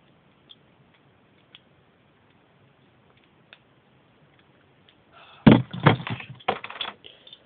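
Metal and plastic Beyblade parts being pressed and twisted together by hand, a part that won't go in. A few faint ticks, then a burst of loud knocks and clatter about five seconds in.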